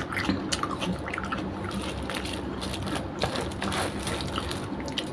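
Close-up wet chewing and mouth noises of someone eating by hand, with many small clicks, while fingers pick through saucy food on a foil tray.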